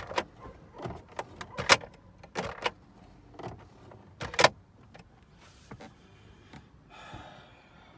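Plastic interior trim of a 2001 Volkswagen Passat B5+ being handled: a run of about seven sharp plastic clicks and knocks, the loudest about a second and a half in and again near the middle, then only faint sounds. The trim has just been refitted with anti-squeak tape.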